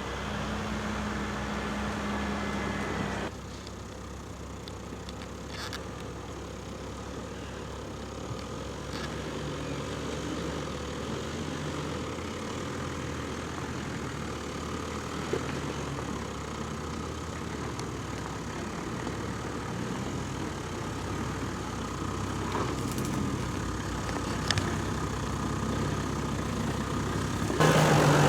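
Off-road vehicle engine running at low revs, its pitch shifting as it crawls along. The sound changes abruptly about three seconds in, and near the end a louder engine note comes in.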